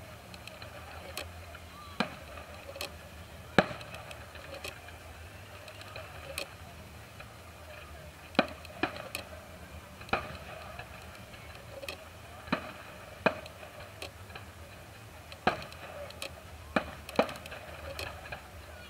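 Aerial firework shells bursting in a display, heard as a series of sharp bangs and cracks at irregular intervals, roughly one every second or two, with some louder than others.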